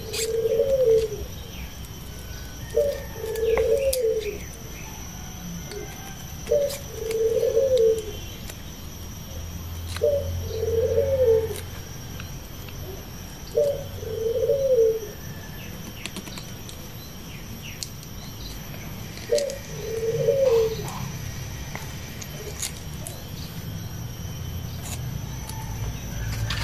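A dove cooing: six calls, each a short note followed by a longer coo, repeated every three to four seconds.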